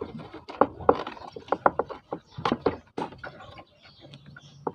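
Irregular clicks, taps and rustles of hands handling a horn interrupter relay and its wiring among scooter body plastics, busiest in the first three seconds.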